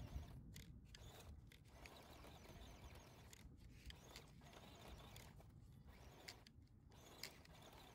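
Near silence: a faint low rumble with scattered light clicks.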